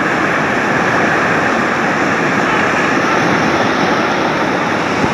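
Loud, steady rushing of moving water, with no clear engine tone.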